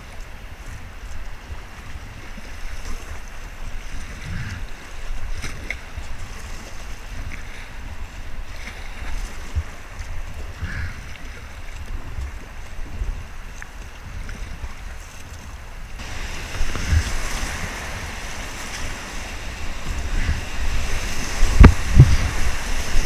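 Rushing river water with wind buffeting the microphone on a whitewater kayak; about two-thirds of the way in the rush of a rapid grows louder and fuller as the kayak enters it, with heavy water hits on the microphone near the end.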